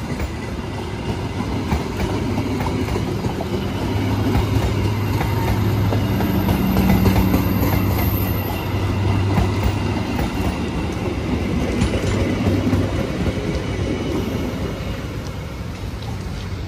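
A diesel-hauled train passing on the track: engine and wheel noise swell to a peak about seven seconds in, then fade.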